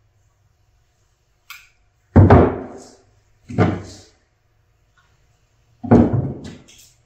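5x7 LED headlights being set down and moved about on a wooden workbench: a faint click, then about four sharp knocks, two of them close together near the end.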